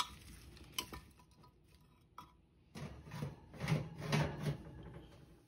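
A few light clicks as a glass baking dish is handled, then scraping and knocking as the dish slides onto a metal oven rack.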